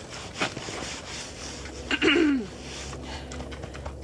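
Kunekune pig giving one short grunt about two seconds in, harsh and falling in pitch, over faint rubbing sounds.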